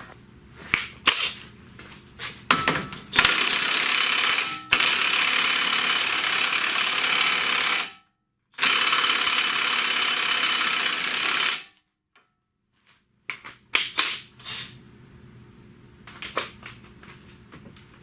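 Pneumatic tool running at full speed in two long bursts of about four and three seconds, with short clicks and clanks of hand tools before and after.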